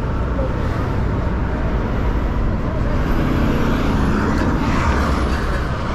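City street traffic: cars and other vehicles running through a busy intersection, with one passing vehicle growing louder in the second half.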